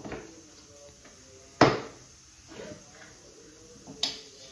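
A few knocks and clanks of metal against a large stainless-steel flour drum as a sieve stuck inside it is worked at by hand. The loudest knock comes about one and a half seconds in, another near the end.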